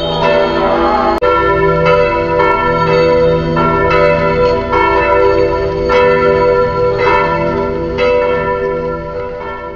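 Church bells ringing, several bells striking in an uneven, overlapping pattern with their tones hanging on between strikes. The sound drops out for an instant about a second in, then fades near the end.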